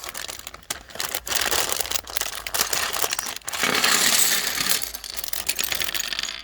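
Small hard plastic Lego pieces clicking and clattering as they are handled and snapped together, with a louder rustling rattle for about a second just past the middle.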